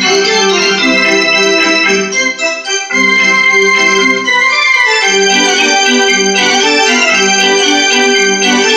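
Yamaha portable electronic keyboard being played with both hands: a melody of held, sustained notes over chords, with a short break in the playing about two seconds in.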